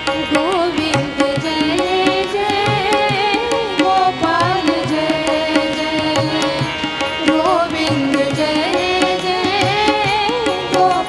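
Devotional kirtan music in an instrumental passage: a wavering melody over a steady tabla beat.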